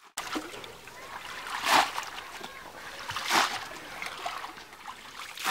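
Muddy shallow water splashing as a woven bamboo polo fish trap is worked down into the pond bottom, with two louder splashes about a second and a half apart.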